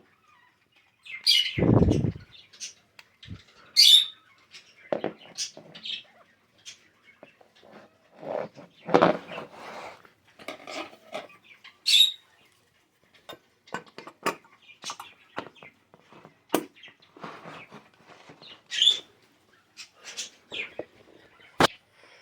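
Irregular bird chirps among scattered clicks and knocks, with one low thud about two seconds in.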